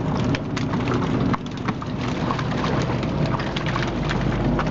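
Freshly caught salmon flopping and slapping on a purse seiner's wooden deck grating, an irregular patter of knocks, over the steady low drone of the boat's engine.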